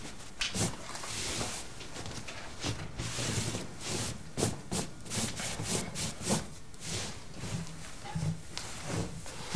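Soft rustling and rubbing with scattered light knocks, as of fabric and objects being handled by the bed, with a few footsteps on the floor among them.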